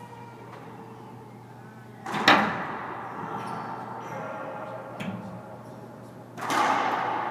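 Racquetball rally: the ball is smacked hard about two seconds in, the loudest sound, echoing off the court walls, with a lighter hit about five seconds in. A louder burst of noise starts near the end.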